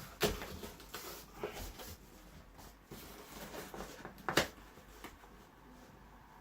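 Handling of the cardboard packaging of a computer case: soft rustles and a few light knocks, the sharpest about four seconds in.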